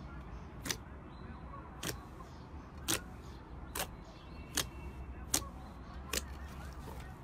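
Fingertips poking into a large blob of glossy slime, each poke giving a sharp popping click, about one a second, seven in all.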